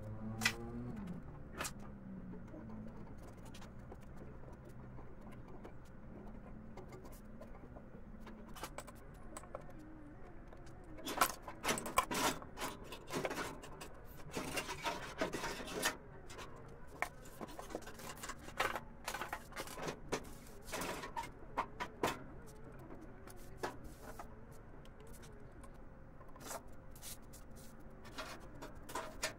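Metal carburetor parts clinking and scraping as the carburetor is taken apart by hand and with a screwdriver. The clicks are scattered, with a dense run of clinks and scrapes from about 11 to 16 seconds in.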